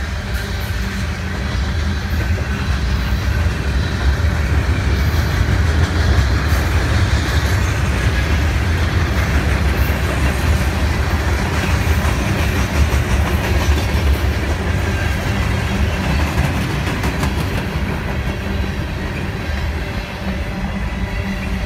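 Freight train cars rolling past on the track: a steady rumble of steel wheels on the rails.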